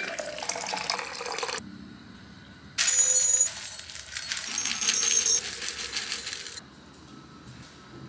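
Dry cat kibble poured from a plastic cup into ceramic cat bowls, the pellets rattling and clinking against the ceramic, loudest about three seconds in and again around five seconds. A shorter, softer noisy sound comes before it in the first second and a half.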